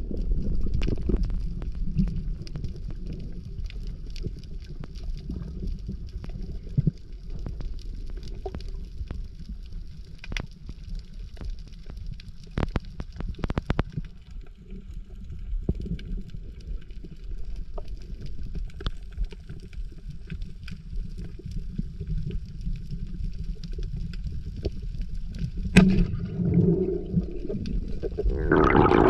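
Muffled underwater noise as picked up by a submerged camera: a steady low rumble with scattered sharp clicks and snaps. Right at the end, a splash as the camera breaks the surface.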